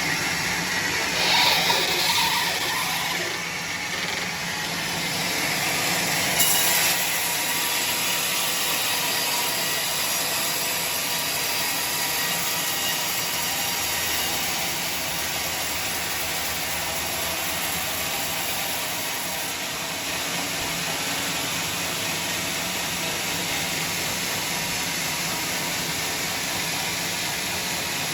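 Sawmill machinery running steadily, a motor-driven saw giving a dense continuous noise with a low steady hum, and short louder bursts about a second and a half in and again about six seconds in.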